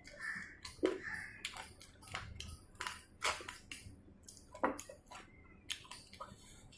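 Close chewing and biting of chicken: irregular crunching and crackling, with two sharper crunches about a second in and just before five seconds.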